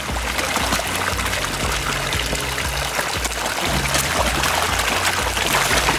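A packed crowd of carp and koi thrashing and gulping at the water's surface as they compete for food pellets, a dense continuous splashing full of small slaps and drips. Background music with a repeating bass line runs underneath.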